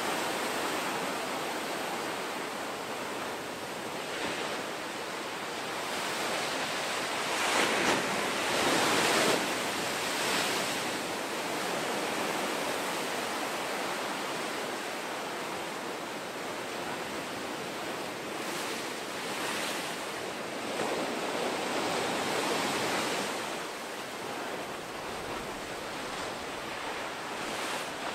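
Ocean waves breaking and whitewater washing in, a steady rushing that swells each time a wave breaks, loudest around eight to nine seconds in.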